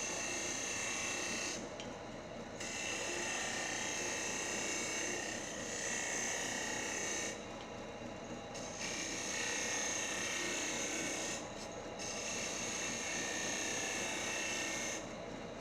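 Wood lathe running while a turning chisel cuts the spinning wooden blank. The high hiss of the cut stops briefly four times, as the tool is lifted between passes.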